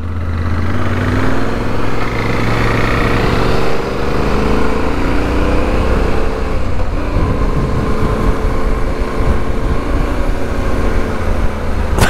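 Yamaha Ténéré 700 parallel-twin motorcycle engine pulling away and accelerating, with a brief drop in engine note about four seconds in as it shifts gear, then running steadily at cruising speed. Wind rushes over the microphone throughout.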